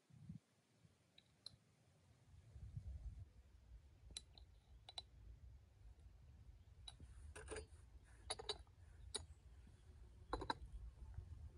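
A small metal spoon clinking against ceramic seasoning jars and a bowl as spice powder is scooped out, with light knocks as the jars and lids are handled and set down. The clicks come singly at first and then in small clusters, busiest in the second half, over a low rumble.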